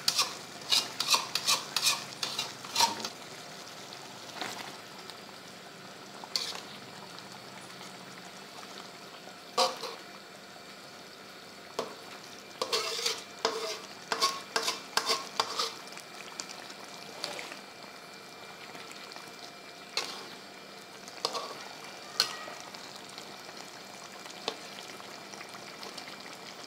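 Metal spatula scraping and tapping against a metal wok while turning fried catfish in curry sauce, over a steady low sizzle of the simmering sauce. A quick run of strokes comes at the start, then occasional single scrapes, with a busier spell about halfway through.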